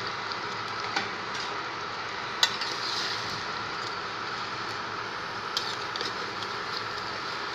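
Chicken curry cooking in a steel pan with a steady hiss of bubbling sauce, while a metal spoon stirs the pieces and clicks against the pan a few times, loudest about two and a half seconds in.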